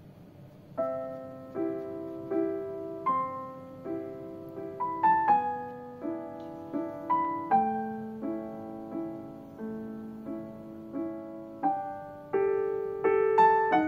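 Background piano music: a gentle melody of single notes and chords struck at an even, unhurried pace, starting just under a second in.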